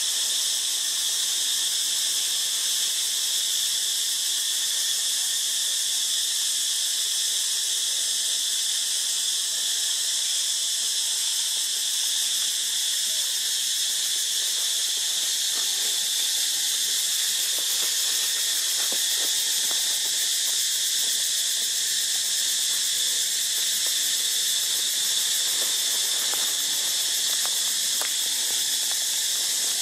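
Steady, high-pitched insect chorus droning without a break.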